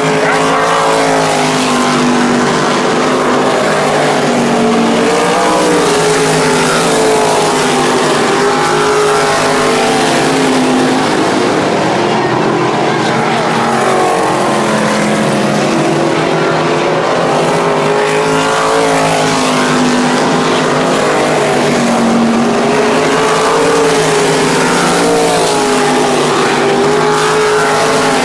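A field of dirt-track race cars running laps, several engines at once. Their pitch rises and falls together as the cars go around, the sound swelling each time the pack comes past.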